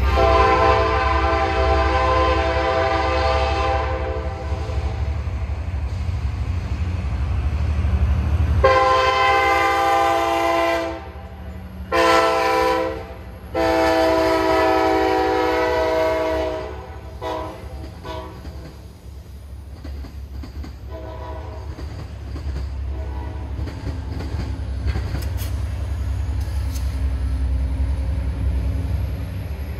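Diesel passenger locomotive's multi-note air horn over the low rumble of its engine: one long blast, then after a pause long, short and long, the pattern sounded for a grade crossing. A few faint short toots follow as the train moves away.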